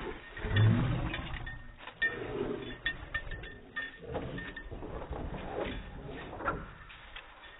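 A dog dashing and wheeling along a wooden fence, its paws scuffing and scrabbling on bare dirt and dry leaves. A dog gives a short low vocal sound about half a second in. The scuffling fades near the end as the dog runs off.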